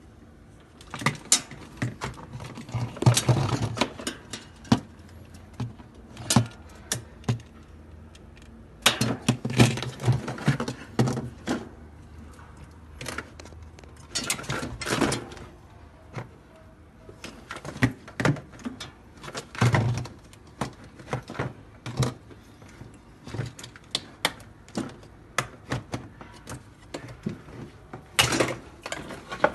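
Irregular clicks, knocks and rattles of hands working on the plastic interior parts and evaporator cover of a refrigerator, with clusters of clatter a second or so in, around nine to eleven seconds, and near the end.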